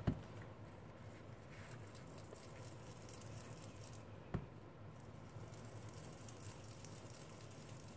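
Faint soft scrubbing of a foam ink blending tool dabbed and swirled over paper, applying Distress ink, with one light tap about four seconds in.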